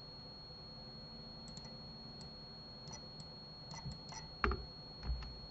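Faint, scattered clicks of a computer mouse and keyboard, a few light taps spread through, with a slightly louder knock about four and a half seconds in.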